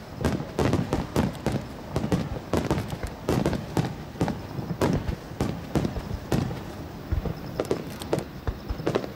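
Starmine fireworks display: shells bursting in rapid, irregular bangs, about three or four a second, each with a short echo.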